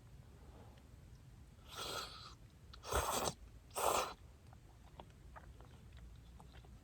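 A person eating hot duck hot pot makes three short, airy mouth-and-breath noises about two, three and four seconds in, the last two the loudest, as of slurping or blowing on hot food.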